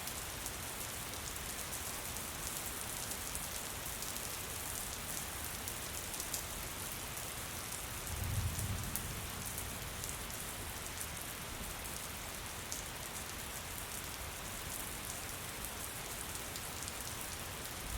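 Steady rain falling on a surface, a constant hiss with many small drop ticks, and a brief low rumble about eight seconds in.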